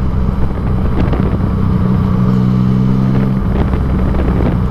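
Yamaha MT-09 motorcycle's inline three-cylinder engine running at a steady cruising note while the bike is ridden, heard from the rider's helmet camera.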